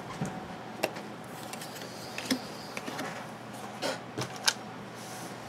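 2012 Score football trading cards being handled and laid down on a table: a few scattered soft taps and clicks of card stock over low room noise.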